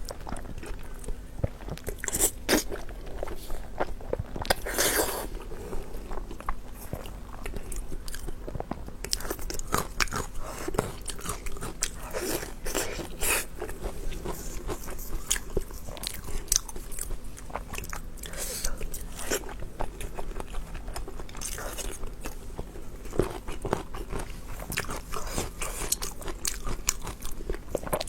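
Close-miked biting and chewing of beef tendon: a steady, irregular run of wet clicks and crunches, louder in clusters.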